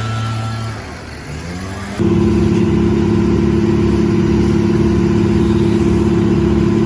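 An engine running at a steady speed that eases off under a second in, rises in pitch, then about two seconds in jumps to a louder, higher steady speed and holds there.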